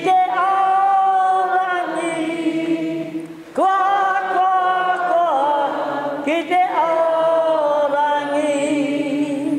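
A woman leading a group in a slow, chant-like Māori song, with the audience singing along. Three long sung phrases, each rising into a held note and falling away at its end.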